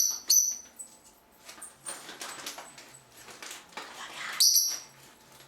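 Pet bird squawking: two short, shrill screeches at the start, scratchy softer noises in between, and another loud screech about four and a half seconds in.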